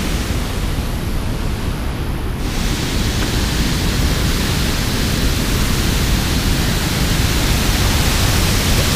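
Water pouring over a concrete dam spillway and churning below: a loud, steady rush of noise that turns brighter and hissier about two and a half seconds in.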